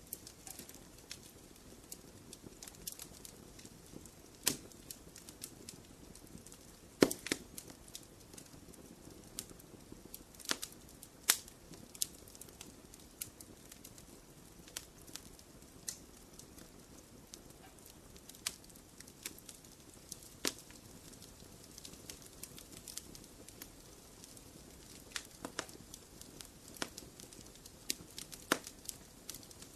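Wood fire burning in a fireplace: a soft steady hiss broken by irregular sharp crackles and pops, the loudest pops about seven and eleven seconds in.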